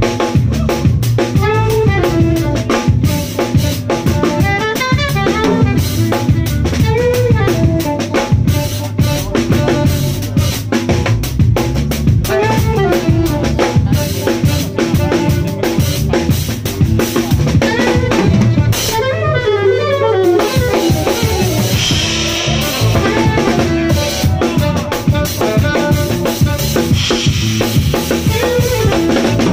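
Live jazz band playing: a drum kit with snare, kick and rimshots, an electric bass guitar, and a saxophone playing melodic lines and quick runs.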